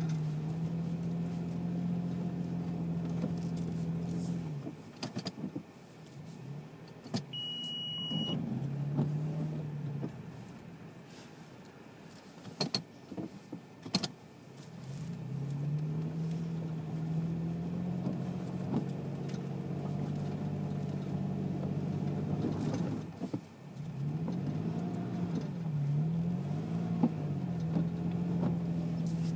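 Toyota FJ Cruiser's 4.0-litre V6 heard from inside the cabin as it works through deep snow. The engine note fades for several seconds in the middle, with a few knocks and a short high beep, then comes back, and the revs rise and fall several times near the end.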